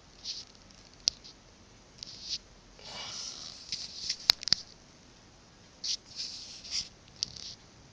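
Close handling noise on a handheld camera: short bursts of rustling and hissing, with a few sharp clicks, the loudest a little past the middle.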